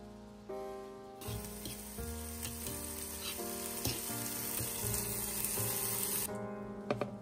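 Chopped green pepper and cherry tomatoes sizzling in a nonstick frying pan as they are stirred, with a few clicks of the utensil against the pan. The sizzle starts about a second in and stops near the end, over background music.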